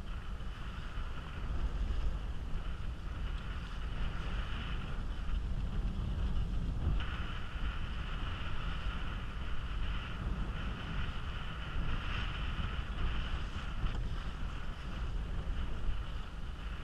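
Wind buffeting the microphone over a low rumble, with water rushing and splashing along the bow of a 1970s Alcort Sunfish sailing at speed. The water hiss eases briefly near the middle, then comes back.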